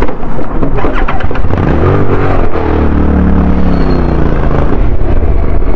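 Motorcycle engine accelerating away: its pitch rises about two seconds in, then holds steady over a dense low rumble.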